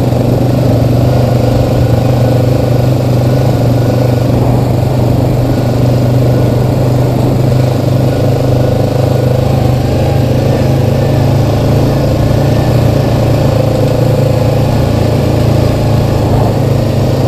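ATV engine running steadily while riding along a dirt trail: a constant low drone with no clear revving or shifting.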